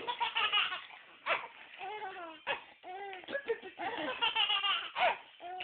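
A young child laughing in a string of short, high-pitched giggles and squeals, with brief pauses between the fits.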